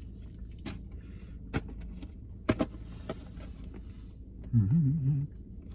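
A few sharp clicks and taps, then near the end about a second of a person's wordless voice that wavers up and down in pitch, over a steady low hum.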